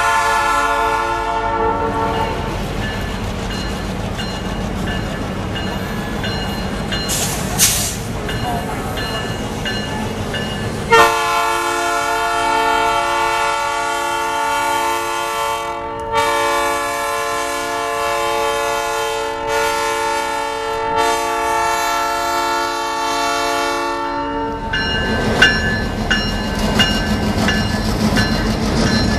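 Canadian Pacific heritage EMD F-unit diesel locomotives, led by 1401, rumbling past slowly. The air horn's chord dies away at the start. About eleven seconds in, the horn blows one long blast of some thirteen seconds with a brief break partway through. Then the locomotives' engines run close by.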